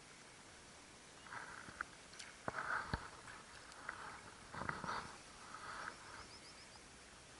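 Daiwa Certate spinning reel being cranked on a retrieve: a soft whirring that comes in short spells about once a second, with two sharp clicks around the middle.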